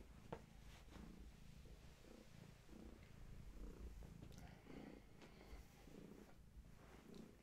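Domestic long-haired tabby cat purring, a faint rhythmic purr that pulses about twice a second with her breathing. A single sharp knock about a third of a second in.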